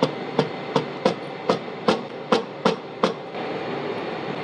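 A steel fixing pin being tapped down into the knurling-tool holder: about nine sharp metallic taps, roughly three a second, that stop a little past the three-second mark, over a steady workshop hum.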